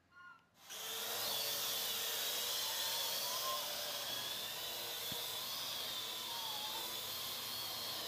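Parrot AR.Drone quadcopter starting up: after a brief faint chirp, its four electric motors and propellers spin up suddenly as it lifts off, then run with a steady high-pitched whir while it hovers.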